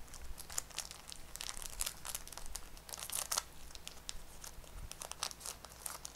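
Foil trading-card booster pack wrapper being torn open and crinkled by hand: a run of light crackles and rips.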